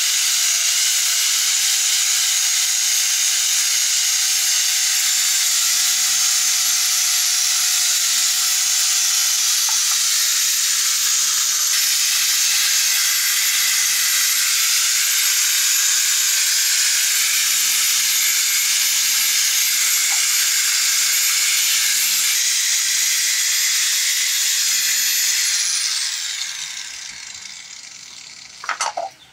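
Small electric angle grinder with a sanding disc running steadily at full speed, its high motor whine mixed with the rasp of the disc sanding coconut shell and wood. About three-quarters of the way through it is switched off and its whine falls away as it spins down, and a brief sharp knock comes just before the end.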